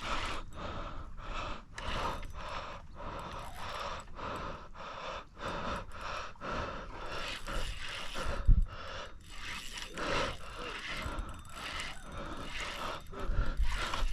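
A person breathing hard and panting while fighting a fish on a rod and reel, with scraping and reel-handling noise. A couple of low thumps come in the second half.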